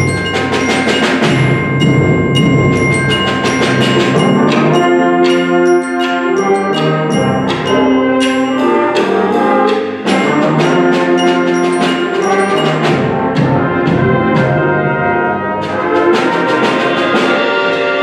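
Concert band playing: brass holding chords under a stream of quick mallet-percussion notes struck on a keyboard percussion instrument.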